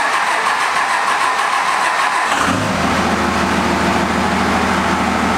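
A 5.9-litre 24-valve Cummins inline-six turbodiesel in a 2001 Dodge Ram starts up. It runs rough and noisy for the first couple of seconds, then settles into a steady diesel idle about two and a half seconds in.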